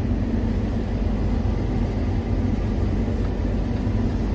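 John Deere S790 combine running steadily while harvesting peas: a constant low machine hum of engine and threshing, with no change in pitch or level.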